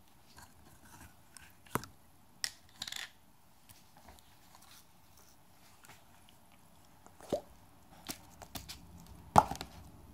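Slime and its plastic tubs being handled right at the microphone: scattered taps, clicks and soft sticky handling noises. The loudest is a sharp knock near the end, with another about two seconds in.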